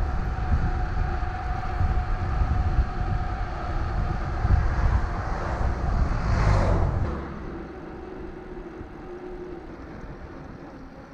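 Wind rushing over a bicycle-mounted camera on a road ride, with a tanker truck driving past in the opposite lane, its noise swelling to a peak about six and a half seconds in. Just after, the sound drops to a much quieter rush.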